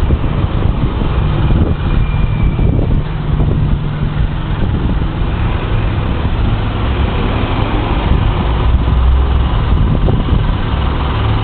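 Heavy road traffic: car and truck engines running with tyre noise and a steady low rumble.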